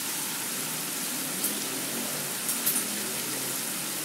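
Golden, cooked tempe fritters coated in shredded wonton skin sizzling steadily in hot oil in a frying pan, with a few sharp crackles about one and a half and two and a half seconds in.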